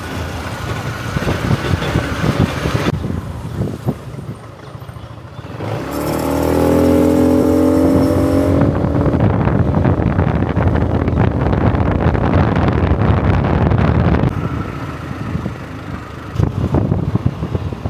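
Ride in a hailed road vehicle: engine running with road noise, speeding up with a rising pitch about six seconds in. The sound changes abruptly several times, as between short joined clips.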